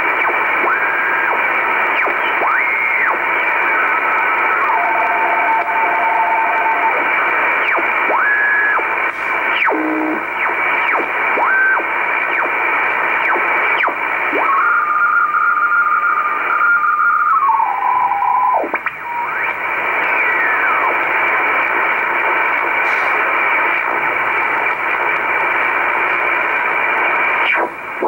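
Icom IC-R8500 communications receiver in upper sideband tuned slowly across the 10 MHz shortwave utility band: a constant rush of band hiss, with carrier whistles that glide in pitch and vanish as the dial passes over each signal. Around the middle a steady tone holds for a few seconds, then steps down in pitch and stops.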